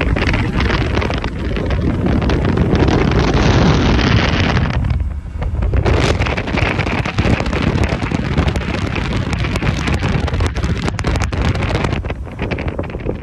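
Heavy wind buffeting the microphone aboard a fishing boat running at speed, with the low rumble of the Mercury outboard and the hull on the water underneath. The noise dips briefly about five seconds in.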